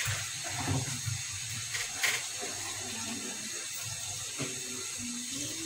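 Beef tripe and sliced onions frying in oil in a metal karai, a steady sizzle with a couple of light ticks about two seconds in.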